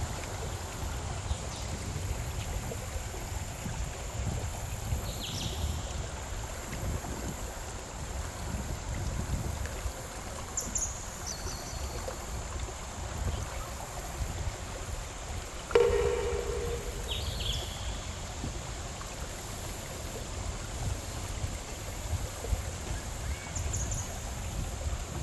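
Outdoor ambience: a steady low rumble with a few short high chirps. Two-thirds of the way through comes a sudden, ringing knock, the loudest sound, which fades over about a second.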